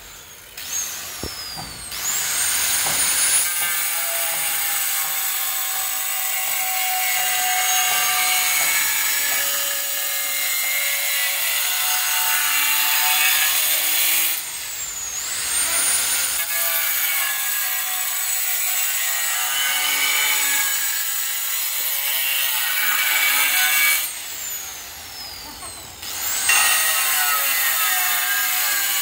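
Handheld angle grinder with a diamond blade cutting a red floor tile, its high motor whine wavering in pitch as the blade bites into the tile. The grinder spins up about two seconds in, is briefly let off and spun up again about halfway through, and drops off again near the end before spinning back up.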